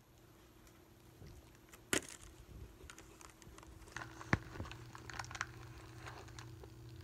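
Faint, irregular clicks and taps of a dog nosing and licking at a cardboard candy box, with one sharp click about two seconds in and a busier run of clicks a little after four seconds. A faint steady hum sets in about four seconds in.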